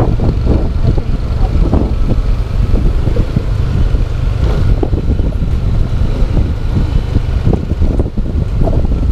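Heavy wind buffeting on the microphone of a moving motorcycle, with its engine running steadily underneath.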